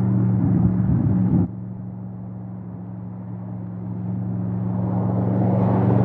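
Audi RS7 Sportback Performance's 4.0-litre twin-turbo V8 running at steady revs with its exhaust rumbling. About a second and a half in the sound drops abruptly quieter, then swells steadily as the car draws nearer.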